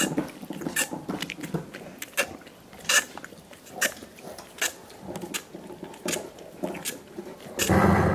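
Dogs gnawing and licking soup bones: irregular clicks of teeth on bone mixed with wet slurping, and a louder burst of noise lasting about half a second near the end.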